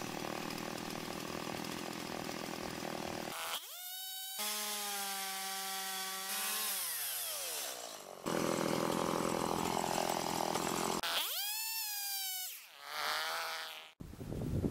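Small two-stroke chainsaw cutting through a wooden beam, with a dense ragged sound under load. Between stretches of cutting the engine note sinks in pitch and later wavers up and down. The sound cuts off abruptly near the end.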